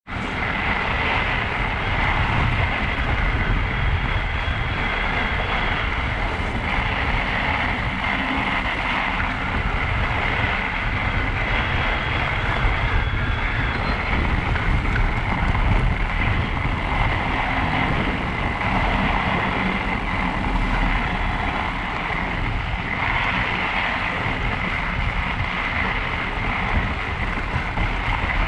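Fat-tyre electric bike riding over packed snow: steady wind buffeting on the microphone and tyre noise, with the electric motor's steady high whine throughout.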